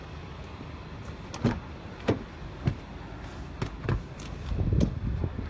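About six sharp knocks and clicks of a Ford Transit van's door and of someone climbing into the cab. Under them runs a low rumble that grows louder in the last second.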